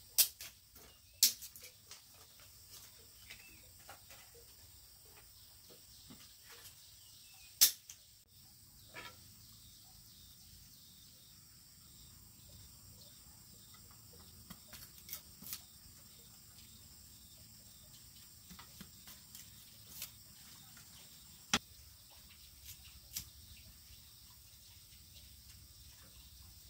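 Dry kindling sticks being snapped and chopped with a sickle: scattered sharp cracks and knocks, the loudest near the start and about seven and a half seconds in, with quieter taps between.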